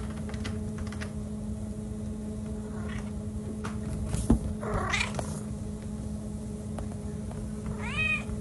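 Domestic cat meowing: one rising-and-falling meow about halfway through and another near the end, over a steady low hum. A single sharp knock, the loudest sound, comes just before the first meow.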